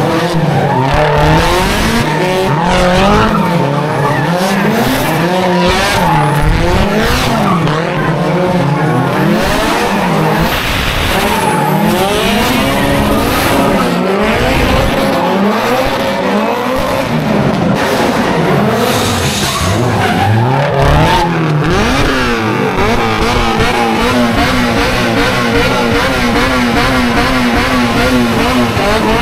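Car engine revving hard, its pitch swinging up and down again and again, with tyres squealing as in drifting or a burnout. Over the last few seconds it holds a steady high rev.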